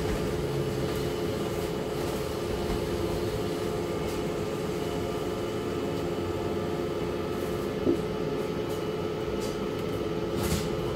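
Steady hum of a running city bus heard from inside the passenger cabin, with a few faint steady tones in it. A brief squeak comes about eight seconds in, and a short hiss near the end.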